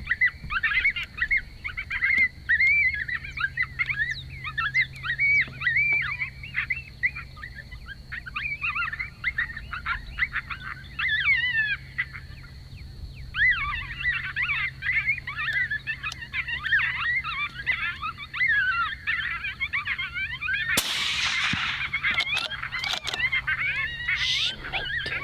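Electronic predator caller playing coyote "pup chaos": a fast, unbroken string of high yips and squeals, with a short pause near the middle. About three-quarters of the way through, a single suppressed Bergara rifle shot cracks out, and the pup calls keep going after it.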